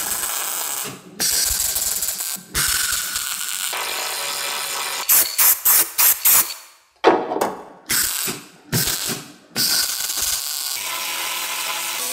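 MIG welder crackling against car floor sheet metal, starting and stopping in a series of bursts: some runs a second or more long, and quick short tacks in the middle.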